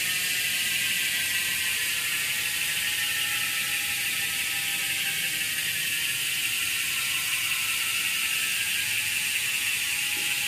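A road bike's rear freehub ticking in a fast, steady ratcheting whir as the lifted rear wheel spins freely and coasts. Its pitch sags slightly as the wheel slows.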